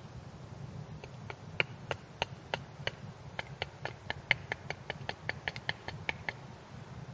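Hatchet chopping small strokes into the end of a hand-held wooden stick on a chopping block, shaping a splitting wedge: a run of about twenty sharp wooden knocks, a few spaced ones from about a second in, then quicker at about four a second, stopping shortly before the end.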